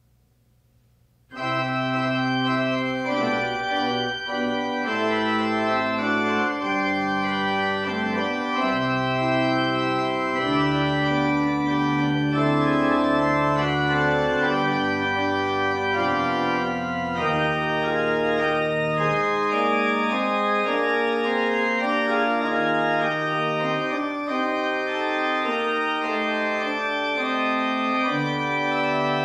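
Church organ playing a postlude of slow, sustained chords over moving bass notes, starting abruptly about a second in after a moment of near silence.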